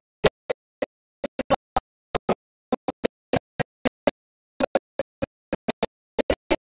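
Broken audio track: a man's amplified voice comes through only as short clipped snippets, about four brief blips a second, each cut off by dead digital silence.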